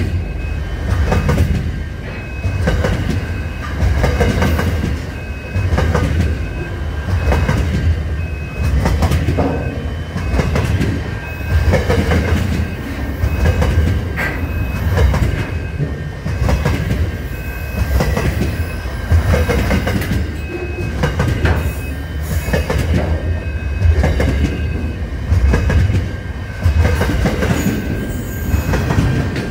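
Intermodal container freight train passing close by at speed, its steel wheels clattering on the rails and swelling in loudness about every two seconds as each wagon goes by. A high beeping note repeats in the background.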